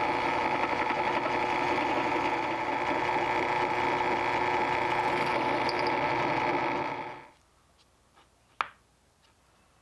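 A benchtop drill press runs steadily as its bit bores through a mesquite handle scale on a steel knife tang. It stops suddenly about seven seconds in. After that it is quiet, apart from a single sharp click near the end.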